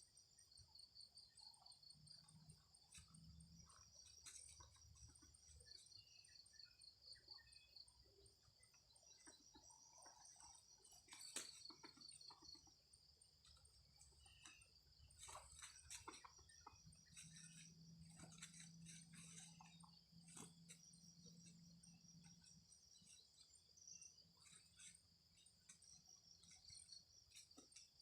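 Faint chorus of crickets trilling steadily, with small scattered clicks and rustles.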